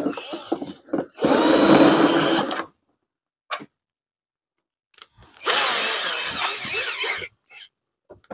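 Cordless drill-driver running in short bursts, backing out the screws that hold a scooter's plastic body panels. There are three runs of one to two seconds each, with a single click between the second and third.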